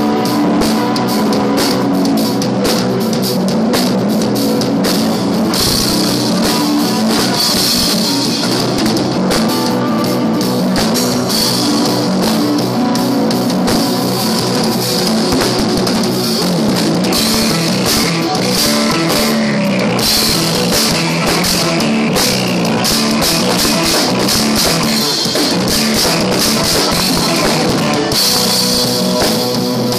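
Drum kit played busily and continuously in a fusion-rock piece, with constant cymbal wash over electric guitar and bass.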